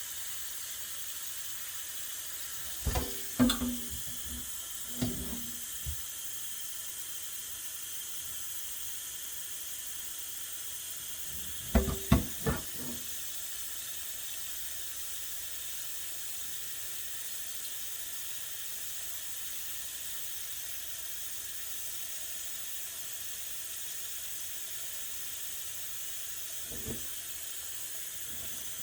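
Tap water running steadily into a pot, filling it. A few short clunks come about three seconds in, around five seconds, in a cluster around twelve seconds, and once faintly near the end.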